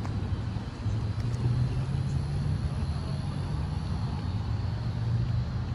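A car running, with a steady low engine hum and road noise.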